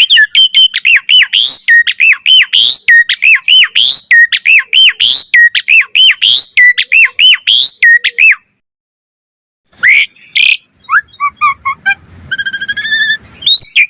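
Asian pied starling (jalak suren) singing a fast run of repeated rising whistles, about four a second. The run breaks off about eight and a half seconds in, and after a second of silence the bird picks up again with varied chattering and whistled notes.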